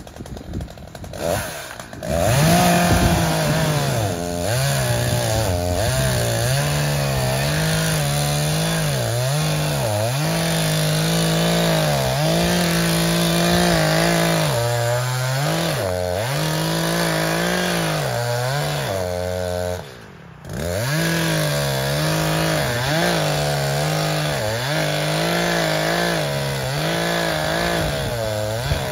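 Chainsaw running hard about two seconds in, its pitch sagging again and again as it loads up in the cut and rising as it revs free. It stops briefly about twenty seconds in, then starts cutting again.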